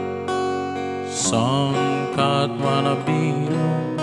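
Acoustic guitar playing chords, recorded through a V8 live sound card as a demo of its sound.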